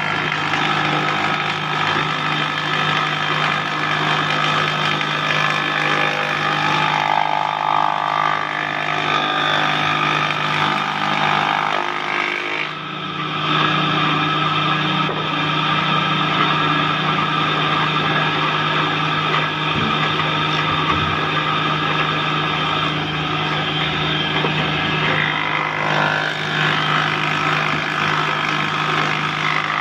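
Electric wood planing machine running steadily, a constant hum with a higher whine over it, dipping briefly a little before halfway.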